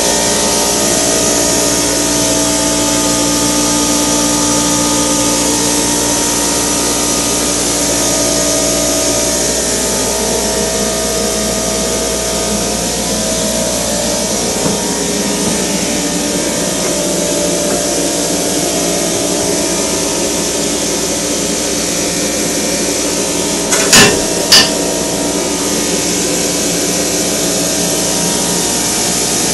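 Steady running noise with a few held tones from the air system of a small homemade Kinyon-style pneumatic forging hammer. Two sharp knocks, half a second apart, come late on and are the loudest sounds.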